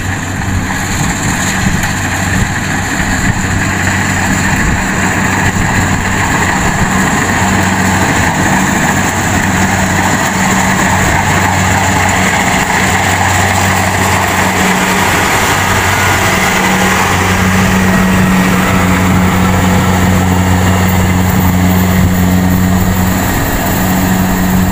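Kubota DC70G rice combine harvester's diesel engine running steadily under load while it cuts and threshes rice, a constant low hum under a rushing mechanical noise, growing a little louder in the second half as the machine passes close.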